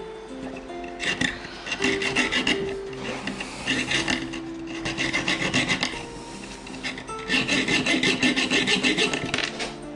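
Hand file rasping on a copper bezel ring in three bouts of quick back-and-forth strokes, filing down a raised seam where the solder joint did not take.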